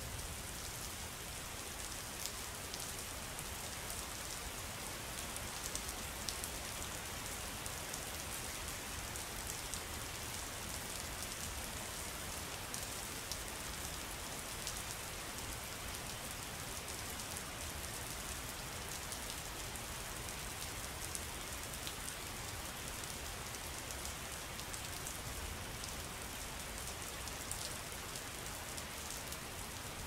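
Steady rain: an even hiss with many small, scattered drop taps.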